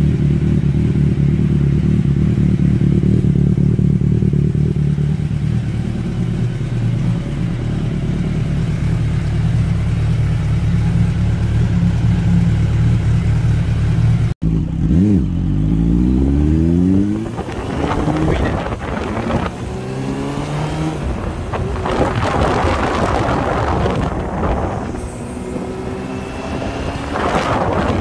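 Suzuki 600cc inline-four motorcycle engine idling steadily. About halfway through it cuts to the bike being ridden, with the engine revving up hard and then pulling through the gears in repeated rising climbs over road and wind noise.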